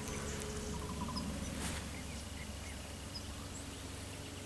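Quiet outdoor ambience with a few brief, high bird chirps scattered through it, and a short run of faint notes about a second in.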